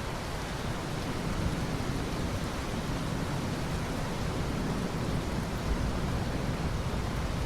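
Steady rain falling as a continuous even hiss, with a low rumble running underneath and no sharp thunderclaps.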